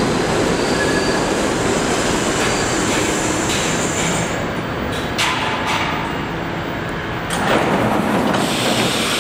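R68A subway train pulling into the station and slowing to a stop, with a steady rumble of wheels on rail. A few clacks come in the middle, and a burst of hiss comes near the end.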